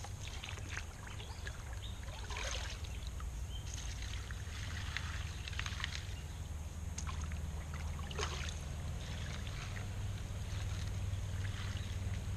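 Shovel digging into wet creek gravel, with irregular scraping and splashing of water and stones. A steady low rumble runs underneath.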